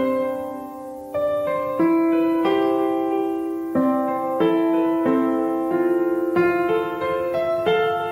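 Background music: a piano playing a slow melody, with chords struck about every half second to second and held.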